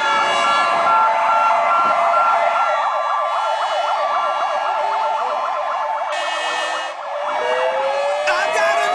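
Several emergency-vehicle sirens sounding together, wailing up and down and then warbling in a fast yelp. They dip briefly about seven seconds in, new rising wails start, and a few sharp clicks come near the end.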